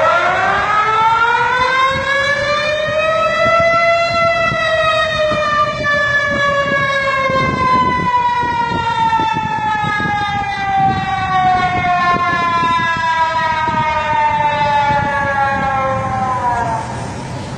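Tsunami warning siren sounding one long wail that signals a tsunami alert. Its pitch rises for about four seconds, then sinks slowly for about twelve seconds and drops away quickly near the end.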